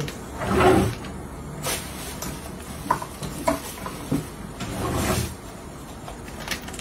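Kitchen drawer being pulled open, rummaged through and pushed shut: short sliding scrapes with a few sharp clicks and clinks, the longest scrape about five seconds in.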